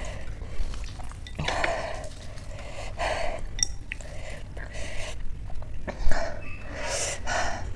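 A woman taking several sharp breaths in and out through her mouth, a second or so apart, reacting to the chilli heat of a very spicy pani puri.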